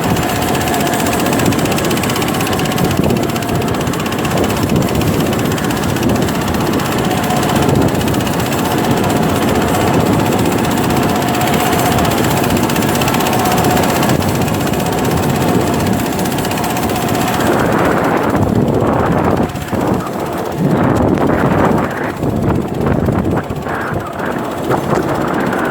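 A small fishing boat's engine running through wind and rough waves, with wind buffeting the microphone. From about eighteen seconds in, the sound turns choppy and uneven.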